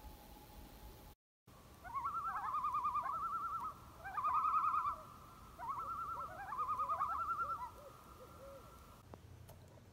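Wild bird calls: a rapidly quavering, trilling call, repeated in three phrases of a second or two each, over a faint steady background.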